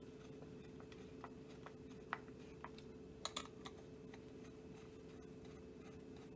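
Faint scattered clicks and taps of a screwdriver and the stock's plastic parts being handled as the butt pad is screwed back on, with a sharper double click about three seconds in, over a steady low hum.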